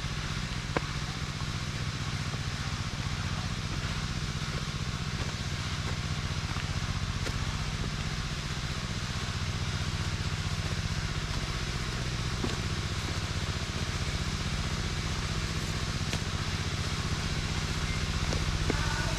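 Engine of a rice blower running steadily at a constant speed, with an even hiss over the engine's low pulsing. A single click comes a little under a second in.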